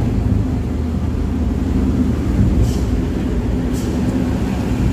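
Bus engine and road noise heard from inside the cabin while cruising on a wet highway: a steady low drone with no change in pace. Two brief faint hisses come about a second apart midway.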